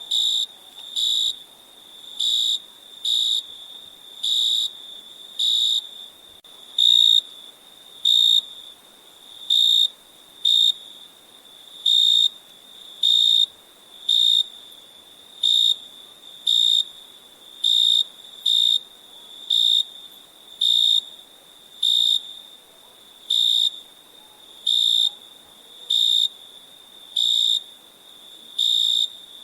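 Crickets chirping at night: one close cricket gives loud, short, high chirps about once a second, sometimes two in quick succession. A fainter steady trill at the same pitch runs beneath them.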